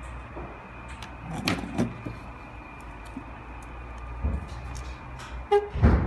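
Handling noise from a drone, its charging cable and its charging adapter: a few plastic clicks and knocks over a steady low hum, with a brief tone and a cluster of louder knocks near the end.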